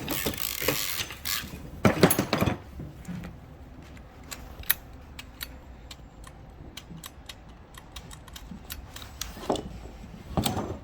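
Dodge Ram seat belt retractor being handled as the belt is released: webbing rustles, then a long run of light, separate clicks from the retractor's ratcheting locking mechanism.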